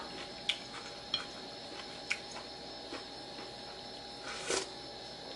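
Quiet eating at the table: a metal spoon and fork lightly clicking against a ceramic plate a few times. About four and a half seconds in there is a brief mouth noise as a spoonful is eaten.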